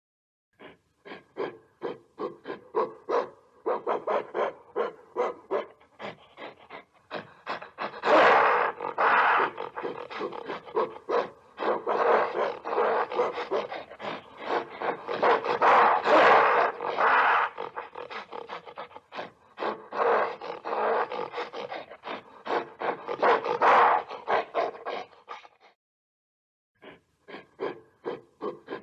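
Gorilla calling in a long run of fast, pulsed vocal bursts that grow louder in several stretches, then break off for about a second near the end before starting again.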